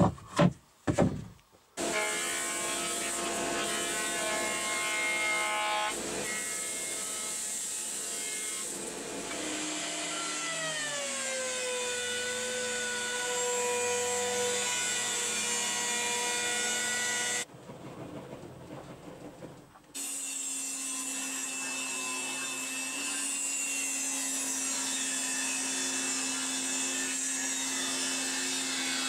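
A few quick strokes of a gloved hand brushing off a wooden board. Then woodworking machines running in turn: a benchtop thickness planer whose pitch drops as it takes the board, and a table saw ripping a pine strip with a steady tone.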